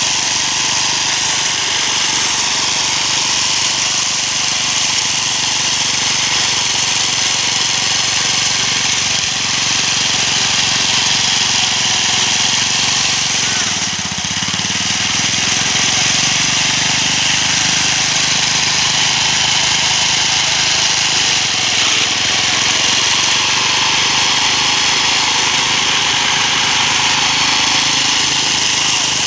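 Small engine of a homemade push grass-cutting machine running steadily while it mows thick grass on uneven ground. Its speed dips briefly about halfway through.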